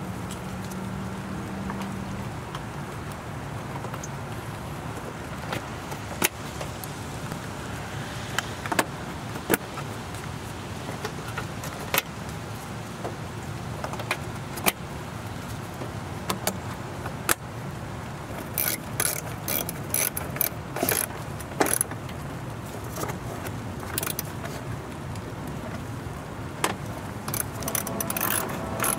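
Plastic push-in plugs and bolts being refitted to a plastic engine-bay cover: scattered sharp clicks and snaps, then runs of rapid clicking from a socket tool about two-thirds through and again near the end, over steady background noise.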